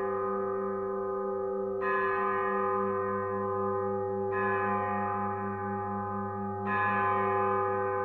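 A deep bell tolling slowly, struck three times about two and a half seconds apart, each stroke ringing on under the next.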